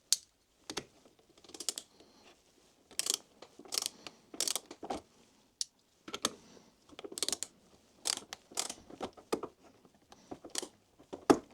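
Small ratchet bit driver's pawl clicking in short bursts as it is swung back and forth to drive a screw. The ratchet is very stiff.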